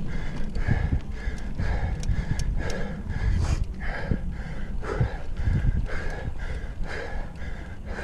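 Mountain bike racer panting hard, about two breaths a second, over a steady low rumble from riding the trail.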